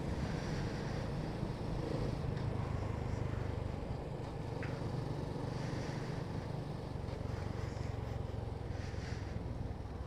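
Motorcycle engine running steadily with wind and road noise while riding, a continuous low drone picked up by a phone headset mic inside the rider's helmet.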